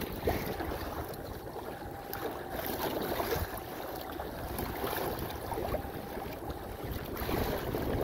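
Wind buffeting the microphone over the splash and slap of choppy water against a moving kayak's hull.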